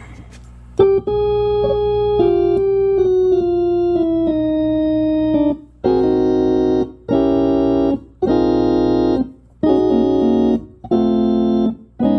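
Hammond A105 tonewheel organ being played: a slow single-note line stepping downward, then a run of held chords about a second each with short breaks between them, over a steady low hum. The organ is in need of repair, with new tubes fitted but its amplifier not yet rebuilt, and the owner calls its sound horrible.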